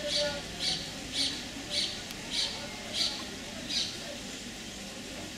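A bird calling again and again: seven short, sharp, high-pitched calls at an even pace a little over half a second apart, stopping about four seconds in, over a steady low background hum.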